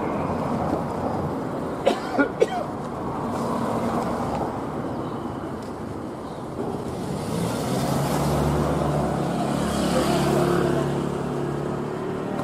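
Street traffic: a motor vehicle's engine hum builds from about seven seconds in and eases off near the end, over steady street noise. Three quick clicks come about two seconds in.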